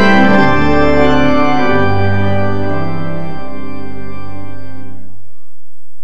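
Organ music playing held chords over a low bass note, fading out about five seconds in.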